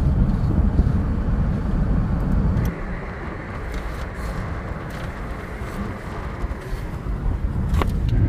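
Wind rushing past an open car window and buffeting the microphone, over the road noise of the moving car. The low rumble drops off about a third of the way in.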